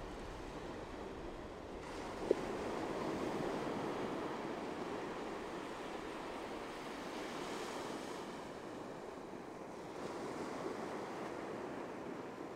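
Ocean surf: waves breaking and washing up the beach as a steady rush. It swells louder about two seconds in and again near ten seconds. A short blip sounds just after the first swell begins.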